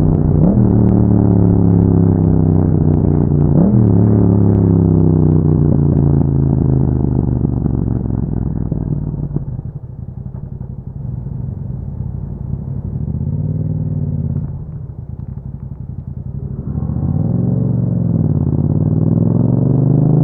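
Yamaha MT-07's 689 cc parallel-twin engine through an Akrapovic exhaust with a dB killer, heard as the bike slows. Its pitch falls, with two short upward jumps that fit downshifts. It then runs low and quieter for several seconds with a couple of brief throttle rises, and near the end it accelerates with a steadily rising pitch.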